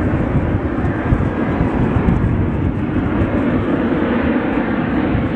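Airbus A350 airliner's twin Rolls-Royce Trent XWB turbofan engines, a steady, loud jet noise in flight at an air show.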